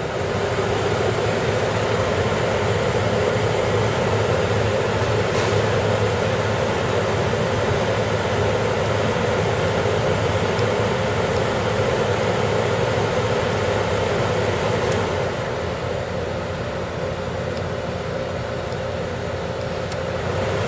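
Friedrich 9500 BTU window air conditioner running with its compressor on and its fan blowing cold air: a steady whoosh over a low hum. The fan noise gets louder about a second in and eases back a little after the middle.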